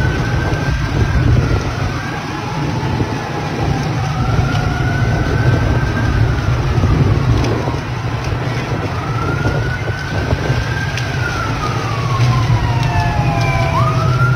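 Emergency vehicle sirens wailing, more than one at once, each slowly rising and falling in pitch; one swoops up sharply near the end. A steady low rumble runs underneath.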